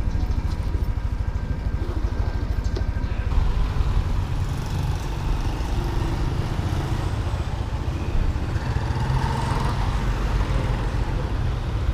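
Motorcycle engine running while riding, its low, fast, even pulse mixed with a steady rush of road and wind noise that grows fuller about three seconds in.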